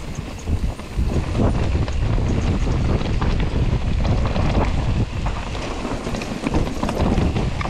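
Wind buffeting the microphone as a mountain bike rides down a steep rocky trail, with tyres crunching and the bike clattering in many irregular knocks over the stones.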